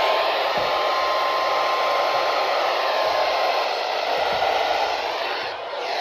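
Weather radio receiver hissing with heavy static from weak reception, with a faint steady tone that stops about three and a half seconds in.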